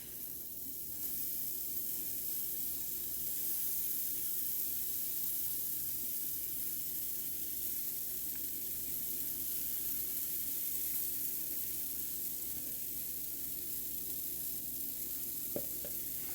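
Pancake batter sizzling on a hot, oiled cast iron skillet: a steady hiss, with a faint click near the end.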